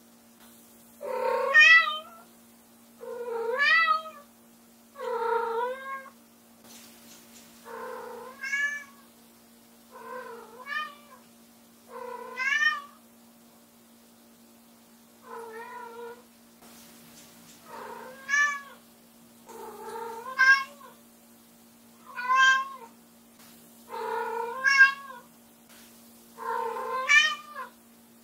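White Munchkin cat meowing loudly over and over, about a dozen rising-and-falling meows roughly one every two seconds: calling for her owner, who has left the room.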